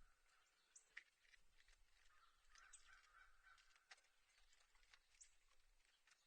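Near silence: faint outdoor ambience with a few brief, high bird chirps and scattered faint clicks.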